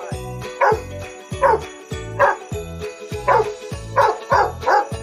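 A dog barking over and over, about eight short barks that come closer together near the end, over children's background music with a steady beat and jingle bells.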